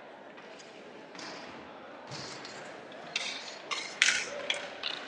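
Inline hockey play: sticks clacking on the ball and against each other in a run of sharp knocks over the last two seconds, the loudest about four seconds in, after a stretch of quieter rink noise.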